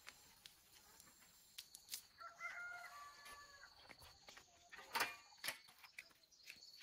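A rooster crowing once in the distance, one call of about a second starting a little after two seconds in, with a few sharp clicks and knocks, the loudest pair about five seconds in.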